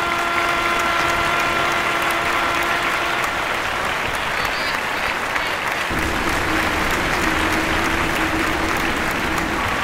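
Spectators at a youth soccer game clapping steadily from the sideline.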